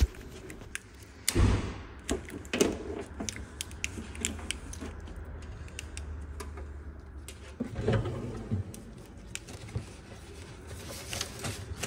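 Handling noise from a plow headlight wiring harness being moved on a board: the plastic split-loom and connectors rustle and click, with a louder bump about a second in.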